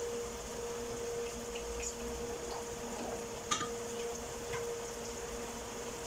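Stovetop cooking: a curry simmering and oil sizzling in a frying pan, over a steady hum and hiss. A single light click about three and a half seconds in.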